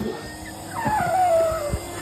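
A vacuum cleaner's motor switched on and running with a steady hum, while a dog gives one whine that falls in pitch about a second in.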